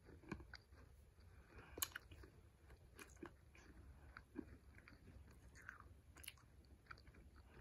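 Faint chewing of a brittle, decades-old piece of baseball-card bubble gum: scattered small crunches and mouth clicks, irregular throughout.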